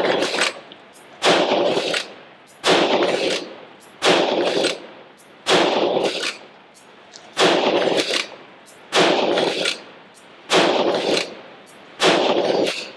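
Remington 7615 pump-action rifle in .223 Remington, fired eight times at a steady pace, one shot about every second and a half. Each shot has a short echo and is followed by a lighter clack as the pump action is worked to chamber the next round.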